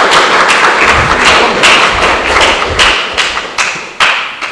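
Audience applauding with sharp beats about two and a half a second, dying away near the end, following a correct answer.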